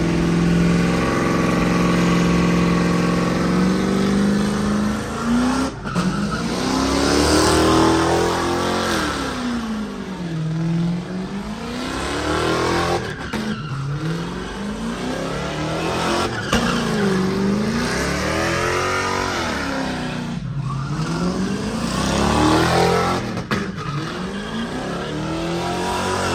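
A car engine held steady at high revs for about five seconds. Then a car spins donuts, its engine note rising and falling again and again, every two or three seconds, over the hiss and screech of spinning tyres.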